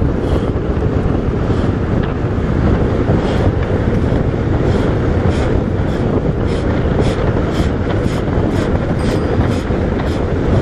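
Wind rushing over the microphone and tyre noise from a bicycle descending at about 55–60 km/h, a loud steady rush with faint irregular ticks and rattles over it.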